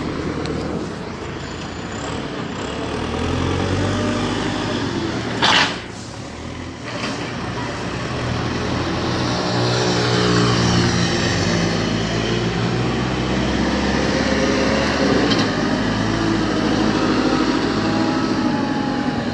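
Diesel engine of a backhoe loader running and moving over a graded roadbed, its note rising and falling, with traffic passing. A short, loud hiss about five and a half seconds in.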